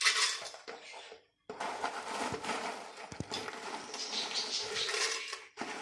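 Fried corn chips rustling and crackling as they are handled and dropped by the handful from a plastic bowl into a blender jar, with small clicks of chips landing. The sound comes in two stretches with a brief cut to silence about a second and a half in.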